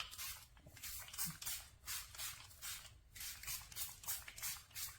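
Heat protectant spray bottle pumped over and over onto hair: a fast series of short hissing sprays, about three to four a second.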